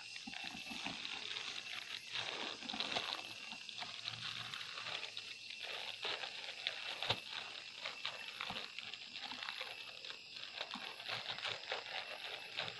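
Irregular rustling, crackling and scraping of hands and tools working into a stingless bee nest inside a tree hollow, over a steady high-pitched insect drone.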